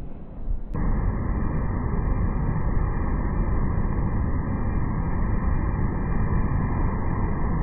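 Steady roar of breaking ocean surf below, starting abruptly under a second in.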